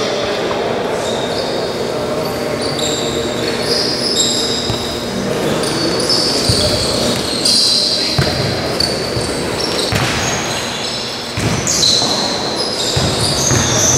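Futsal play in a large echoing indoor hall: sneakers squeaking on the court floor, the ball kicked and bouncing with sharp knocks, and indistinct shouts and chatter from players and spectators.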